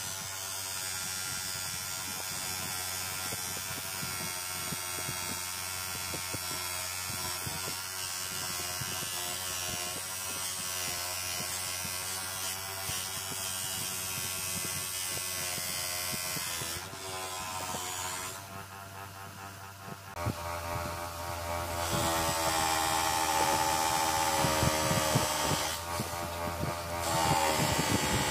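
Bench polishing motor running with a cloth buffing wheel, a steady motor hum and whine as steel revolver parts are held against the wheel. The sound dips past the middle, then runs louder with a stronger whine.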